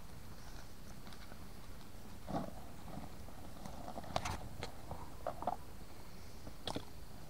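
A few scattered light knocks and short rustles over a faint, steady background.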